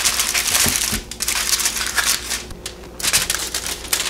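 Aluminium foil crinkling and crackling as it is pulled over and pressed down around a baking dish. The crackle is densest in the first second, then comes in shorter bursts with gaps between them.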